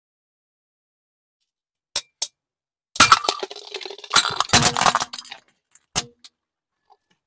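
A small plastic toy desk globe and its blue plastic stand cracking and shattering under a car tyre: two sharp snaps about two seconds in, then about two seconds of loud crackling and splintering plastic, and a few last snaps after.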